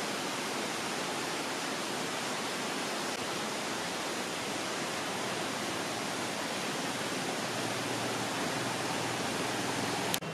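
Waterfall, with falling water making a steady, even rush.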